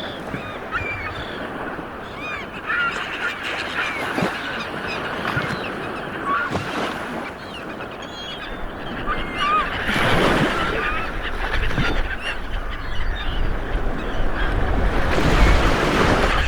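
Surf washing on a beach, swelling louder twice, with many birds giving short calls over the waves.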